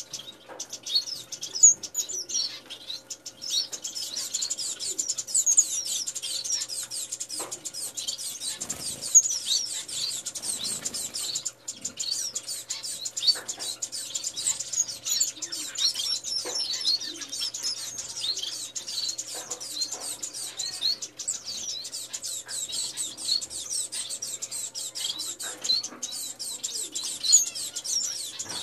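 Small caged finches chirping, a dense, continuous stream of short high chirps, with a few soft rustles around the middle.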